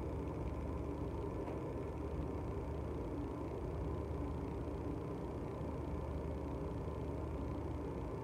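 Steady low hum and rumble with no distinct events.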